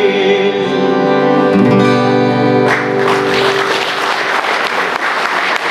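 Accordion and acoustic guitar holding the song's final chord, which ends a little under halfway through; then an audience breaks into applause.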